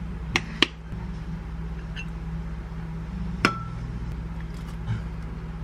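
A metal spoon clinking against a glass measuring beaker: two quick taps near the start, then a single ringing clink about three and a half seconds in. A steady low hum runs underneath.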